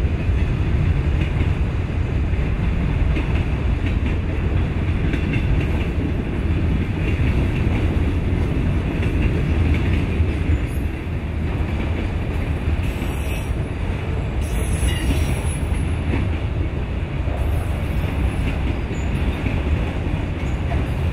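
CSX freight train rolling past at speed, its steel wheels on the rails making a steady, loud, low-heavy noise.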